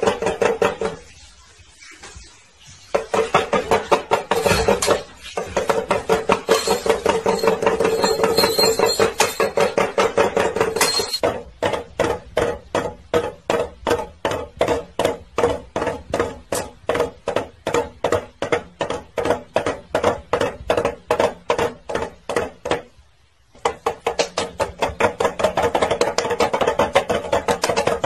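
Small toy drum beaten with wooden sticks: fast rapid drumming, then a long run of evenly spaced single beats about three a second, then fast drumming again near the end.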